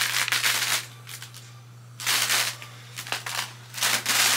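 Scissors cutting through wrapping paper in three separate cuts, each about half a second long, with gaps of over a second between them.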